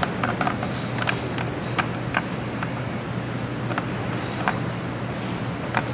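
Gymnasium room tone: a steady low hum with scattered small clicks and taps.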